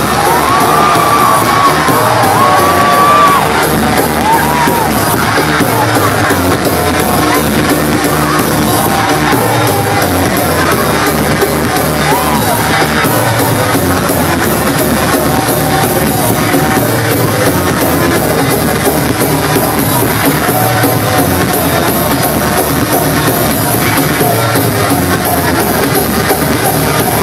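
Loud electronic house music from a nightclub sound system, with a steady beat and a synth melody in the first few seconds, heard through a phone's microphone.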